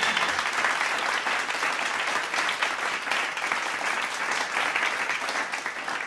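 Audience applause: many people clapping at once, steady and easing off slightly near the end.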